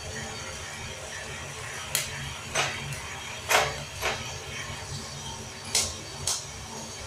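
Coffee beans cracking in the drum of a home-built prototype roaster near a dark roast: six sharp, irregular pops, about half a second apart in pairs, over the steady low hum of the running roaster.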